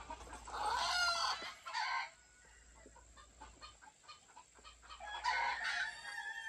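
Game roosters crowing, two crows in all: one starting just under a second in, the other about five seconds in.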